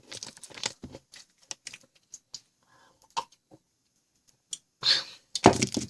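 Crunchy Ogamja potato snacks being bitten and chewed close to the microphone: a run of small clicky crunches, with two louder crunches about five seconds in.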